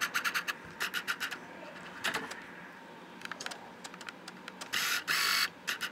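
Handling noise from a camera being knocked and readjusted on its mount: a quick run of clicks and taps, a few more about two seconds in, then a short scraping rub about five seconds in.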